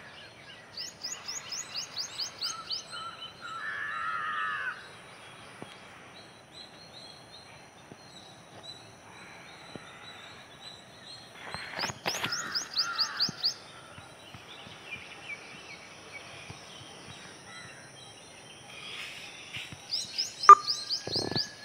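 Birds calling outdoors: a quick run of high, rising notes repeated three times, and a harsh caw-like call about four seconds in, with fainter calls between. A single sharp click near the end is the loudest sound.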